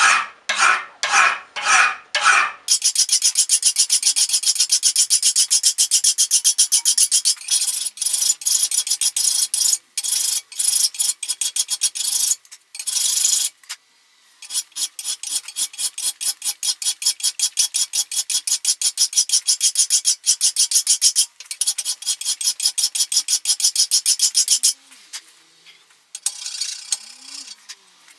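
Flat hand file rasping across a steel knife blade cut from an old file, clamped in a bevel-filing jig, in quick repeated strokes to cut the bevel. The file stops briefly about halfway, and the strokes turn softer near the end.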